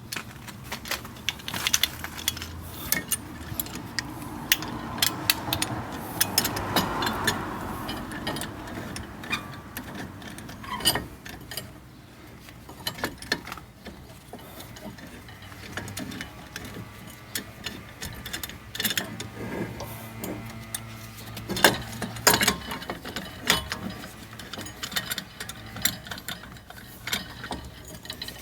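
Hand tool clicking and ratcheting in many irregular metallic clicks and knocks as the front brake caliper piston is pushed back into its bore to make room for new pads.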